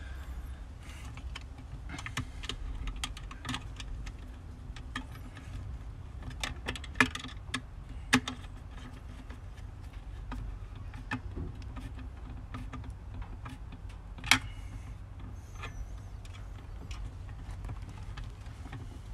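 Screwdriver and copper wire working the terminal screws of a metal AC disconnect box: scattered small metallic clicks and scrapes, with three sharper clinks, over a low steady rumble.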